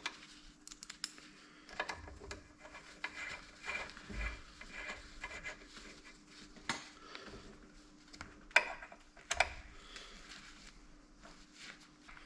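Faint, scattered clicks and clinks of small metal parts being handled and fitted into a drill press gearbox, at irregular moments, over a steady faint hum.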